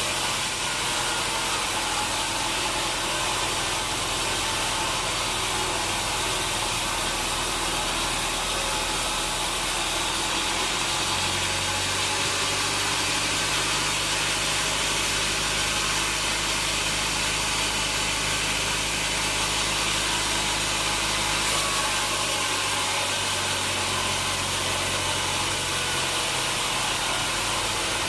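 Sawmill machinery running: a steady, noisy hum over a low motor drone that shifts in pitch about ten seconds in and again a little past twenty seconds.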